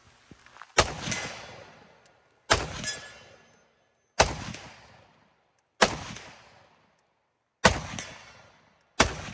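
Rifle fire: six single shots, spaced about one and a half to two seconds apart, each trailing off over about a second.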